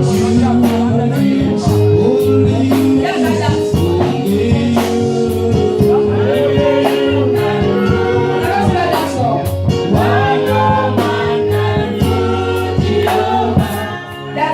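Gospel music with singing over a steady beat and sustained keyboard or bass chords.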